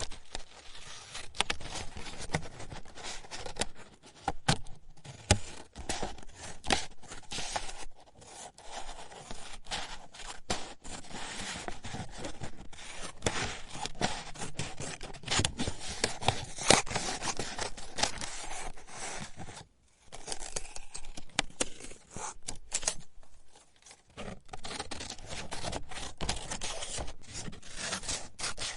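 Paper being cut again and again: a dense run of crisp snips and papery rustle, broken by a few short pauses.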